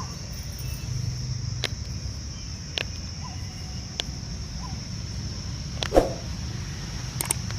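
A steady high-pitched trill over a low hum, broken by a few sharp clicks and one louder knock about six seconds in.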